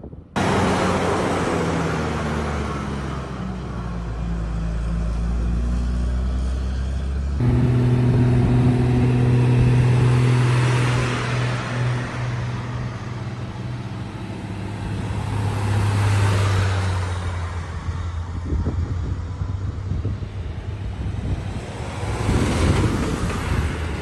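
Heavy fire-truck engines running steadily at low revs. The engine note shifts abruptly about seven seconds in, and swells of rushing noise come and go a few times.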